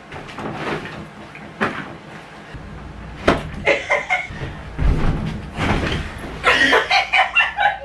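Thumps of a person throwing herself onto a hotel bed and landing on the mattress, the heaviest low thud about five seconds in. Quick bursts of voice follow near the end.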